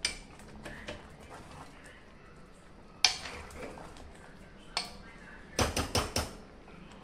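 A metal ladle knocking and scraping against a metal pan while stirring thick chickpea curry: a few separate sharp clinks, then a quick run of four or five knocks about five and a half seconds in.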